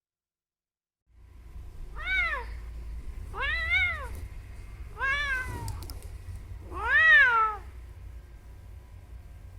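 A cat meowing four times, each meow rising and then falling in pitch, the last one the loudest, over a low rumble.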